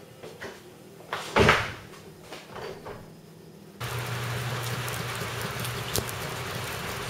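A loud thump with a few lighter knocks around it. Then steady rain hiss with the low, even hum of a garage door opener as a sectional garage door starts to rise.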